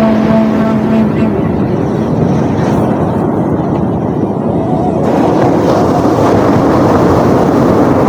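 Sea waves washing in a continuous noisy rush that thins about two seconds in and swells again after about five seconds, with a steady low tone in the first second.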